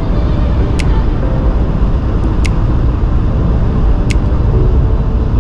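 Road noise inside a moving car's cabin: a steady low rumble of tyres and engine. A light, sharp tick repeats about every second and a half.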